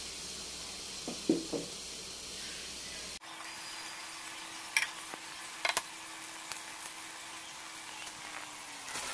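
A pot of freshwater crayfish simmering in broth on the stove: a steady hiss with a few sharp clicks and knocks. About three seconds in the sound cuts, and a low steady hum comes in, dropping in pitch near the end.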